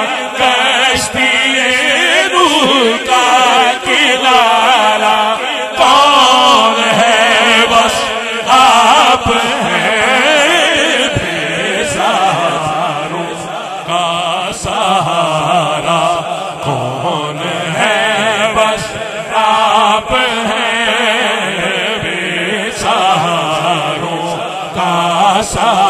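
Unaccompanied male devotional chanting of an Urdu naat: a lead voice draws out long, wavering melodic lines over a low sustained chorus of voices.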